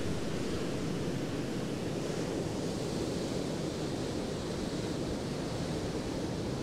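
Sea surf washing onto the beach: a steady, even rush of waves.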